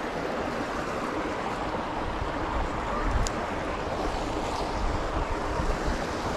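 Steady rush of flowing creek water, with wind gusting on the microphone from about two seconds in and a faint click near the middle.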